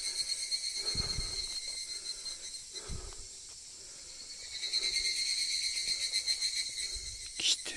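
Steady high-pitched insect chorus that dips a few seconds in and then swells again, with soft footsteps in grass and a sharp click near the end.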